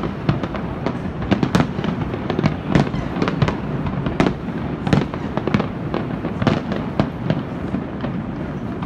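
Aerial firework shells bursting in quick succession: a rapid run of sharp bangs and pops, several a second, over a continuous low rumble.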